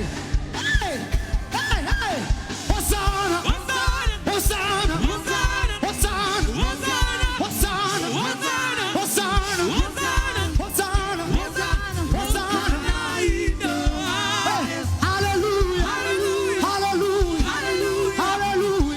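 Live gospel praise music: a band with a steady, fast drum beat under voices singing along.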